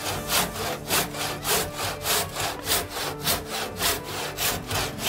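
Hand saw cutting into a wooden ox-yoke blank in steady, even back-and-forth strokes, sawing the kerfs for a strap hole.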